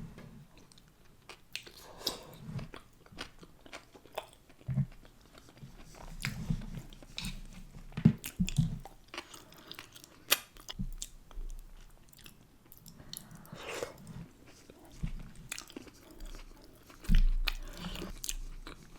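Close-miked eating: a person biting into and chewing heavily sauced food, with irregular wet clicks, lip smacks and crunches.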